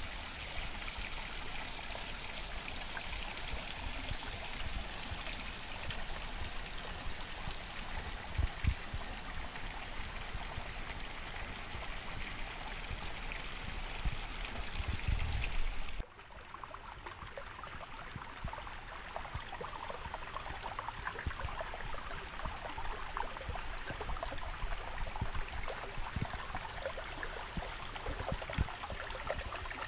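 Shallow rocky creek trickling and running steadily, a continuous rush of water. A couple of low thumps come in the first half. About halfway through the sound cuts abruptly and the water continues a little quieter.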